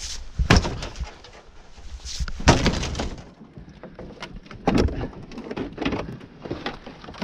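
Irregular knocks, cracks and clatters of wrecked RV trailer debris being broken up, with louder impacts about half a second in, about two and a half seconds in and near five seconds in.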